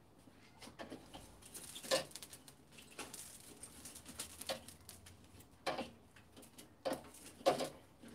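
A metal fire tool knocking and scraping in a steel fire bowl as burning wood and coals are stirred, in scattered strokes about a second apart.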